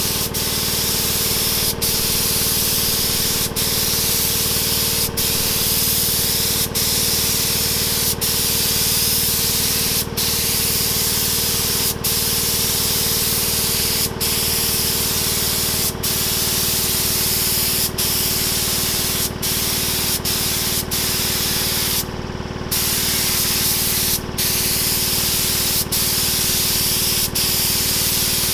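Compressed-air siphon-feed spray gun spraying epoxy paint: a loud, steady hiss of atomising air. It breaks off briefly about every two seconds between passes, with a longer pause of about half a second some 22 seconds in.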